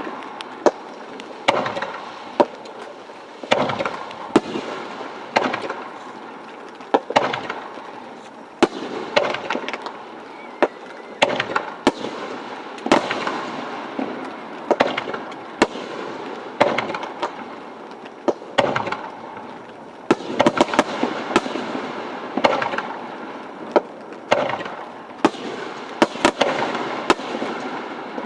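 Aerial firework shells bursting in quick succession, with sharp bangs about once or twice a second and crackling between them.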